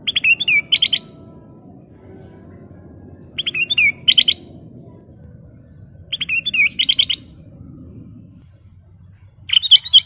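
Caged ruby-throated bulbul (kutilang emas) singing short phrases of quick, rising-and-falling notes, one phrase about every three seconds, four in all. A steady low rumble runs underneath.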